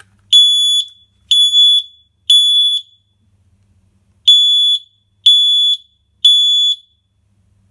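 FireAngel ST-622 smoke alarm sounding its test alarm: six loud, high-pitched beeps, each about half a second long, in two groups of three with a pause between the groups. The alarm sounds at full volume because test pads 3 and 8 are bridged, which undoes the low-volume lockout that follows a battery change.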